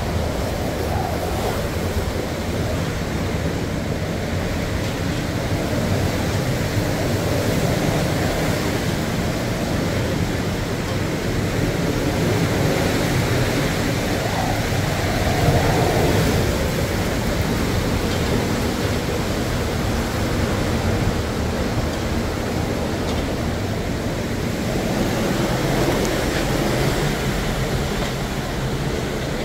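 Hurricane wind and rain: a steady rushing noise that swells and eases in gusts, loudest about halfway through.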